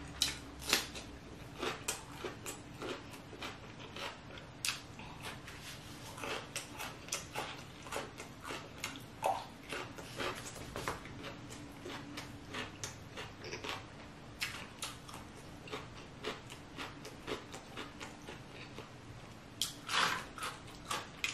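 A person eating close to the microphone: wet chewing and lip-smacking, heard as irregular short clicks a few times a second.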